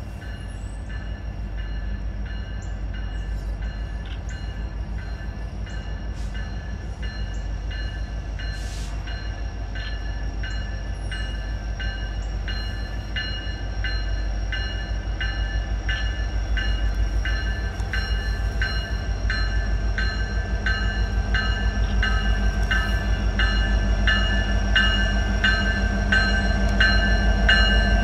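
Freight train rolling past with a rhythmic clicking of wheels over rail joints over a low rumble. The rumble grows steadily louder as Norfolk Southern diesel locomotives approach, and steady high ringing tones run throughout.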